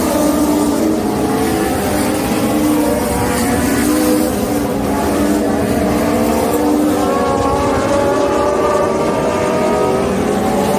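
Several Legend race cars circling a dirt oval, their Yamaha four-cylinder motorcycle engines running together, with pitches that rise and fall a little as the cars go around.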